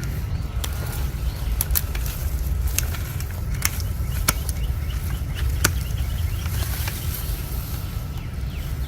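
Steady low rumble with about seven sharp clicks scattered through it.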